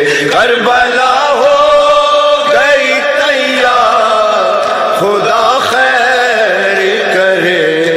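Male voice singing a noha, an unaccompanied Urdu lament for Imam Hussain, drawing out the word 'Karbala' in long, ornamented held notes that bend up and down.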